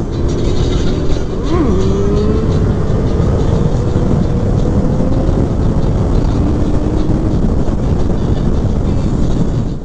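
Sportbike engine running at speed. Its pitch dips sharply about one and a half seconds in, then climbs slowly as the bike pulls. A heavy rush of wind noise lies under it.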